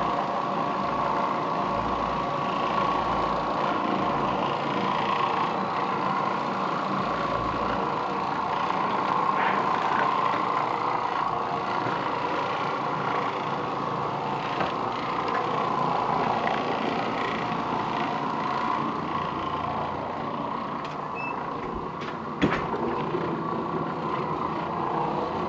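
Oreck Orbiter 550MC orbital floor machine running steadily while scrubbing carpet with a bonnet pad, a constant hum throughout. A single sharp knock comes near the end.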